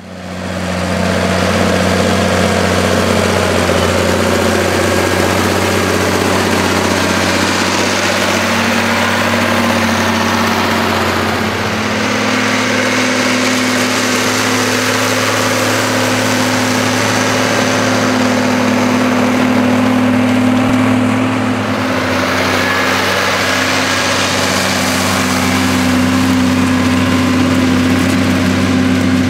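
John Deere 4955 tractor's six-cylinder diesel engine running steadily under load, pulling a four-furrow Kverneland plough through the soil. The engine note changes abruptly about twelve seconds in and changes back about ten seconds later.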